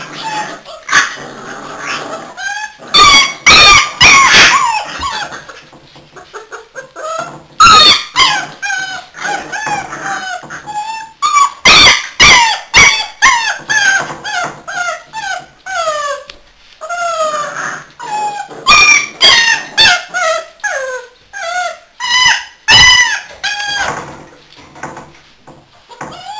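A litter of American Staffordshire Terrier puppies play-fighting, giving many short, high-pitched yips and squeals in quick succession. It is rough play, not a real fight.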